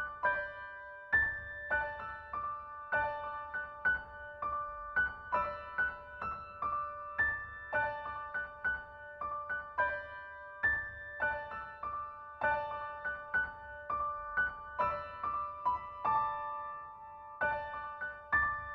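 Background music: a gentle piano melody of repeated single notes over a soft low pulse.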